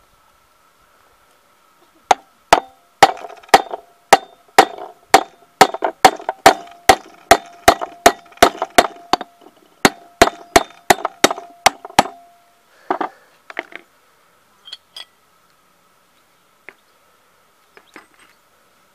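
Hammer blows on a steel drift knocking an old valve guide out of a scooter cylinder head: about twenty sharp, ringing metal strikes, roughly two a second, stopping about twelve seconds in. A few lighter clinks follow as the parts are handled.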